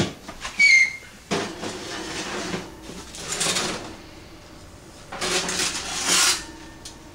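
Oven door swinging open with a short high squeak, then three stretches of metal scraping and sliding as things are moved in the oven.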